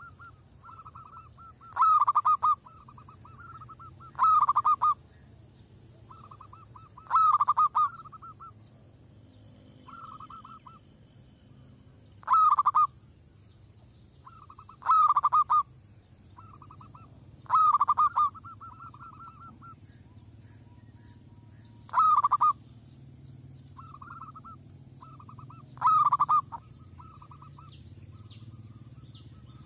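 Zebra dove (merbok) cooing close by: loud, rapid staccato coo phrases come every few seconds, with softer runs of quick cooing notes between them.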